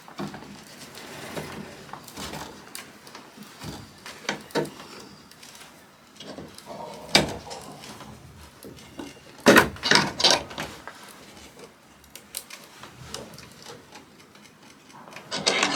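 Eye bolt being wound into a wooden door by a screwdriver turned through its eye: irregular small clicks and creaks, with a louder knock about seven seconds in and a cluster of louder knocks around ten seconds in.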